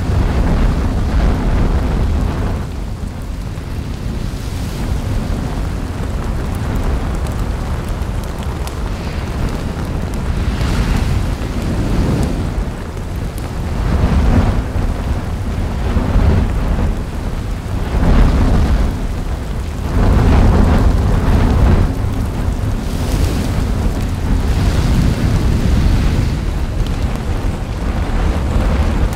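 Volcanic eruption: a deep, continuous rumble of lava fountaining and churning in the crater, swelling in surges every few seconds as the lava bursts up.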